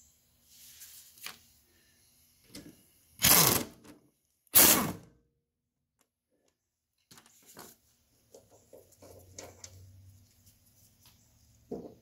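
Two short bursts from a power driver spinning the centre bolt out of a Honda HRX217 lawn mower's blade-clutch assembly, the second about a second after the first. Faint clicks and rattles of the loosened metal parts being handled follow near the end.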